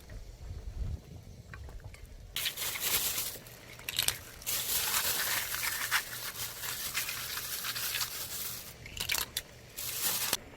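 Crinkling and rustling in several long bursts, with short quieter gaps between them.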